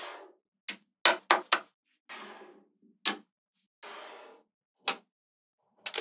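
Small magnetic balls (ball magnets) clicking sharply as rows and panels of them snap together, several clicks in quick succession about a second in. Between the clicks come a few short rasping stretches of the balls sliding and rattling against one another.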